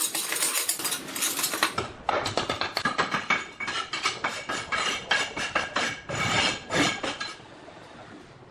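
Steel trowel scraping and rubbing over a concrete countertop in quick, repeated strokes. The scraping dies away about seven seconds in.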